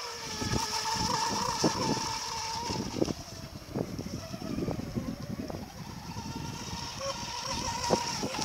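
High, steady electric whine of an RC mono racing boat's Tenshock brushless motor and 30 mm propeller running at speed on the water. The whine fades for a few seconds in the middle and comes back strongly near the end, over irregular low rumbling.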